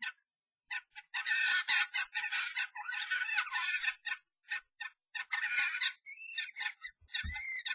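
European starlings fighting inside a nest box: harsh, screeching squawks in quick bursts, the aggressive calls of a territorial fight between an intruding starling and the resident pair. Near the end a few whistled notes glide up and down.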